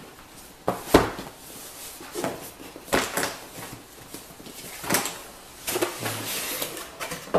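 Unpacking a boxed PC power supply: cardboard box and packing handled, with several sharp knocks and thuds, the loudest about a second in, and rustling of packing around six seconds in.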